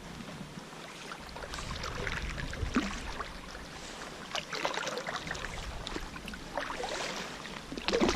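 Kayak paddle strokes dipping and splashing in sea water: irregular splashes every second or two, with water dripping off the blades.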